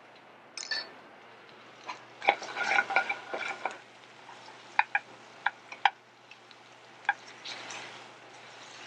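Metal tongs and a sauté pan clattering and clinking as a grouper fillet with shallots and garlic is moved around in the pan. There is a busy run of scraping and clinking about two seconds in, then several single sharp, ringing taps.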